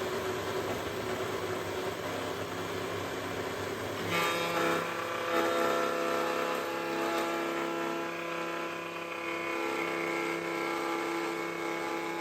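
Router table and Comatic baby power feeder running, the feeder's rollers pulling wood past the router. About four seconds in, a steady whine of several pitches joins and the sound gets a little louder. The feeder is not getting enough traction on the wood to pull it through smoothly.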